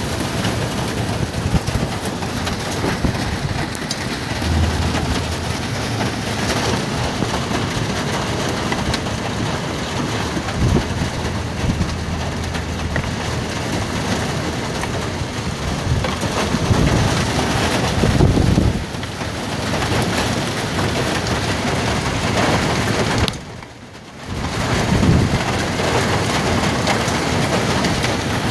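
Hail storm: a dense, steady clatter of hailstones, heavier with a low rumble around 17 seconds in, and dipping away sharply for under a second about 23 seconds in.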